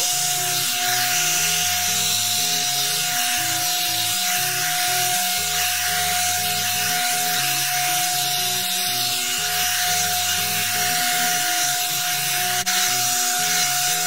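One-step hot-air brush hair dryer running steadily on its high setting: a constant blowing hiss with a steady motor whine. Background music with slowly changing low notes plays underneath.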